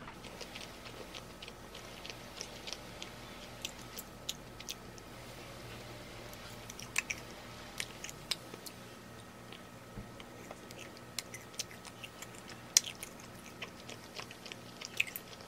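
A person chewing soft bread close to the microphone, with many small wet clicks and mouth noises scattered throughout, over a faint steady hum.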